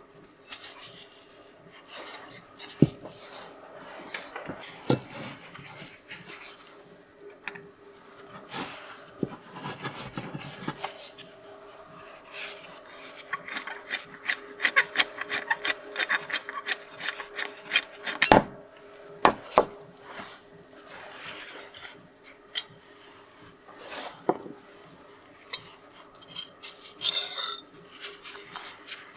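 Screwdriver turning the screw of a rusty hand-plane iron and cap iron to take them apart, with metal scraping and clicking. A dense run of rapid scraping clicks comes in the middle, followed by a few sharp knocks as the steel parts are handled.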